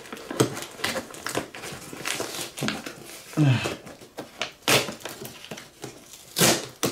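Hands pulling and tearing at a taped cardboard shipping box: scraping and crinkling with several short rips of packing tape and cardboard. About halfway through comes a short grunt of effort.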